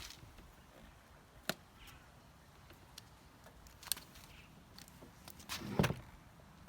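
A few scattered clicks and knocks of a plastic headlight lens and housing being handled and fitted together, the loudest a short cluster of knocks near the end.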